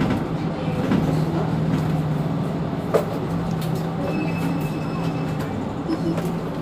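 Mercedes-Benz Citaro C2 city bus standing at idle, a steady mechanical hum with a sharp click about three seconds in.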